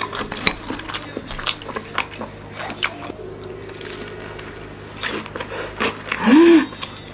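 Close-up biting and chewing of crisp deep-fried gimmari (seaweed-wrapped glass-noodle roll), a run of short crunchy clicks, with a brief hummed "mm" about six seconds in.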